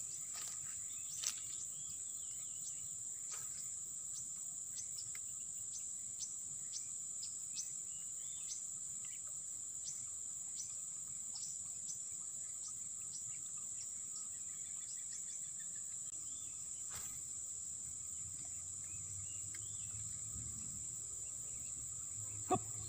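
Steady high-pitched insect drone, with short bird chirps scattered through it and a few faint clicks.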